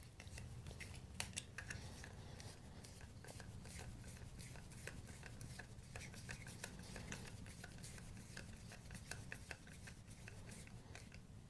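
Screwdriver driving a small screw into a hole in a plastic case: faint, irregular little clicks and creaks as the screw turns into the plastic.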